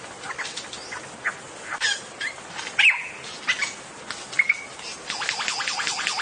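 Male lyrebird singing in display: a string of short, sharp, downward-sweeping calls and clicks, with a quick run of them near the end.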